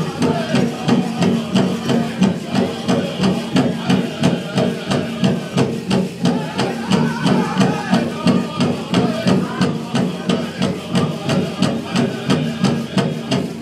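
Powwow big drum struck in a steady beat, about two beats a second, with a drum group singing a jingle dress contest song over it.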